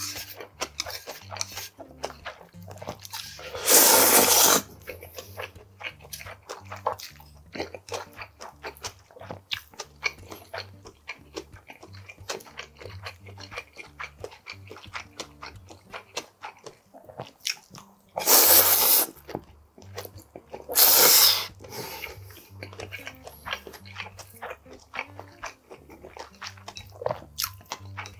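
Close-up eating sounds of cold noodles: wet chewing and mouth clicks throughout, broken by three loud noodle slurps, one a few seconds in and two close together past the middle.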